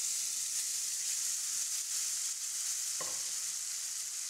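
Cooked toor dal and tomatoes being poured into hot oil tempering in a nonstick pan, sizzling steadily with a high hiss. A light knock about three seconds in.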